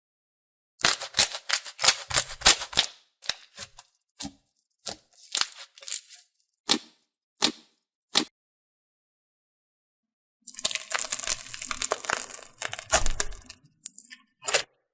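Slime being pressed and squeezed by hand, giving crisp crackling and popping. It comes first as a quick cluster of crackles, then as single snaps about half a second apart. After a pause of about two seconds there is a second dense burst of crackling, and two last pops near the end.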